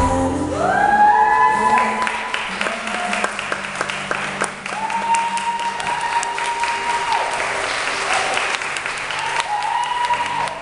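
Audience applauding at the end of a stage performance, with several long, drawn-out cheering calls held over the clapping.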